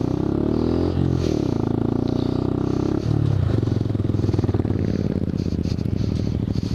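Honda Grom's small single-cylinder engine running under way, its revs dipping and picking up again about a second in and changing again near three seconds.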